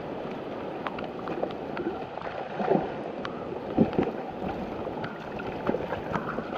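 Water sloshing and splashing, with many small splashes and knocks scattered through it and a couple of louder splashes near the middle.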